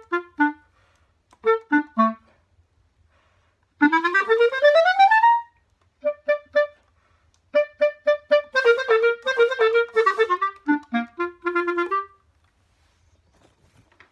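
Solo clarinet played in short phrases of detached notes with quick rising runs, broken by brief pauses. The playing stops about two seconds before the end.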